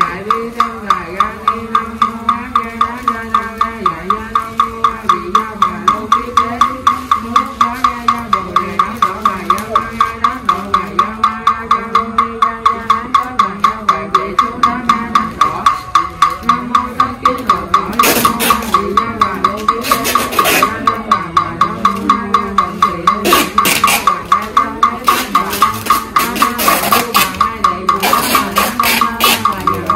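Vietnamese Buddhist funeral chanting: a voice intoning a sutra over a wooden fish (mõ) struck steadily about three times a second, each stroke ringing. Brief hissing noises come several times in the second half.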